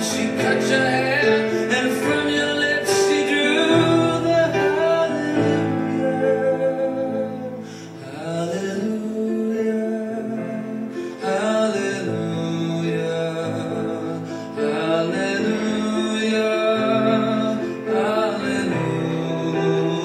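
Music with a singing voice over instrumental accompaniment, with a brief lull about eight seconds in.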